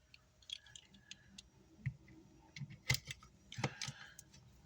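Scattered small clicks and taps of a screwdriver and screws being fitted into a car amplifier, with a sharper knock about three seconds in and another shortly after.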